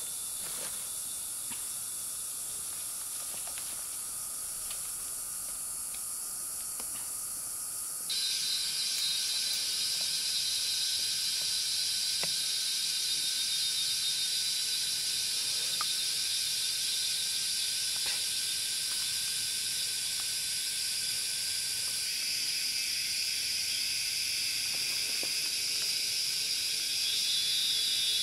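Steady high-pitched buzzing of an insect chorus, which becomes louder and fuller about eight seconds in, with a few faint clicks.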